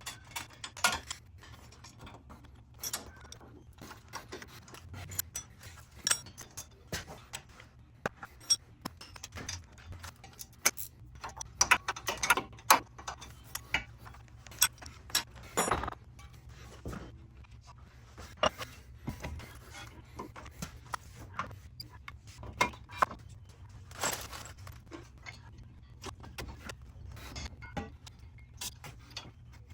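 Metal hand tools clinking and clicking at irregular intervals while exhaust header parts are worked loose, over a low steady hum.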